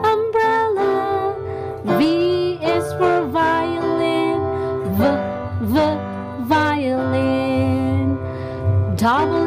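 A children's song: a voice singing a melody over strummed acoustic guitar.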